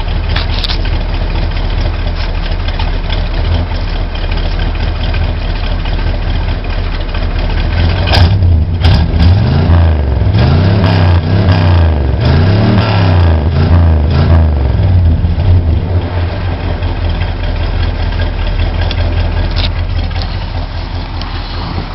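1974 GMC Camper Special's 454 big-block V8 idling steadily. About halfway through it is revved several times, each rev rising and falling, and then it drops back to idle.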